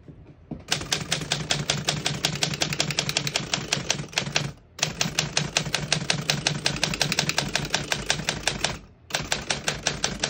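1938 Woodstock manual typewriter being typed on quickly, the typebars striking the platen in a fast, even patter of sharp clacks. It comes in three runs, broken by two short pauses about four and a half and nine seconds in.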